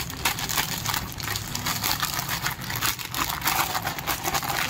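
Clear plastic garment packaging crinkling and rustling as packed suits are handled and stacked: a dense run of quick, irregular crackles.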